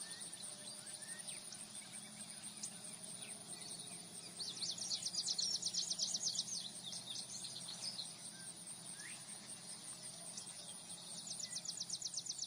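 Insects chirping in fast, rapidly pulsed high trills, in two louder bouts about four seconds in and near the end, over a steady high-pitched insect drone, with a few faint bird chirps.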